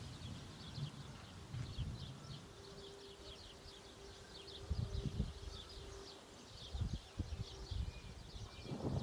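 Many small birds chirping quickly and continuously, with a few low thumps. Right at the end a roll of thunder starts to rumble and swell.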